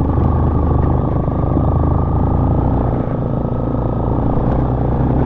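Yamaha motorcycle engine running steadily with a low engine note while the bike rides slowly over a rough dirt track.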